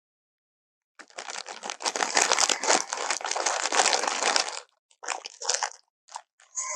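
Tyrannosaurus rex roar sound effect: after a second of silence, a long, rough, rasping roar of nearly four seconds, then two shorter rasps and the start of another, harsher roar near the end.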